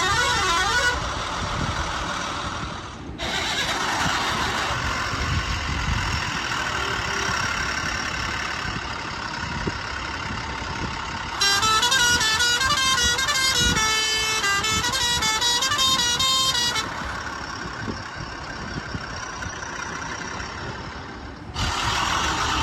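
Vehicle sound effects: an engine running with horn honking, and from about halfway through a few seconds of quick stepping electronic notes like a simple jingle.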